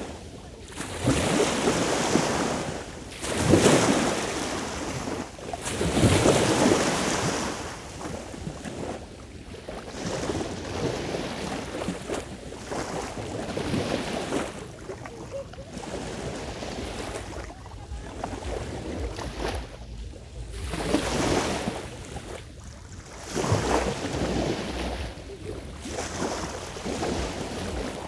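Sea waves washing onto the shore, the surf swelling and falling away every few seconds, with wind rumbling on the microphone.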